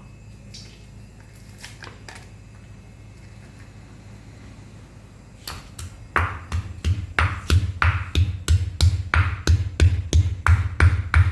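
Dried ginger being pounded to break it up for grinding: a few light taps, then about halfway through a steady run of sharp knocks, about three a second.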